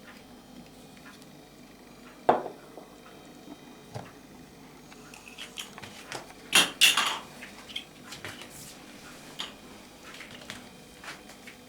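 Scattered metallic clinks and knocks of objects being handled on a workbench, a few single knocks with a louder cluster about six and a half to seven seconds in.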